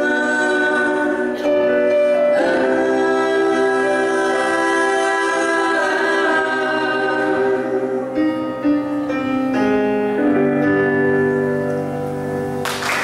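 Live performance of a slow Brazilian pop song: a woman's lead voice with men's harmony voices over two electric keyboards, closing on long held notes. Applause breaks out at the very end.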